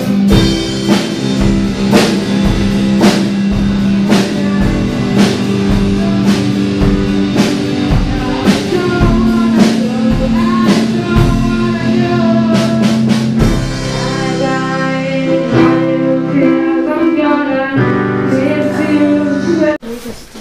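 A band plays a song with a steady drum-kit beat, guitar and a singing voice. The music cuts off suddenly near the end.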